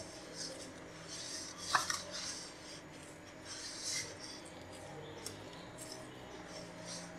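A hand kneading soft maida-and-semolina dough in a stainless steel bowl: faint rubbing and scraping of the dough against the metal, with a brief clink on the bowl about two seconds in.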